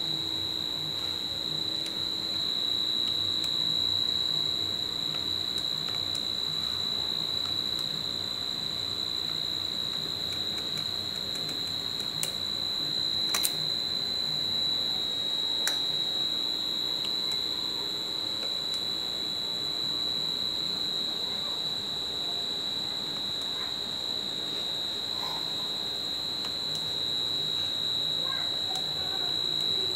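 Steady high-pitched electronic tone held unbroken, with a few sharp clicks about halfway through.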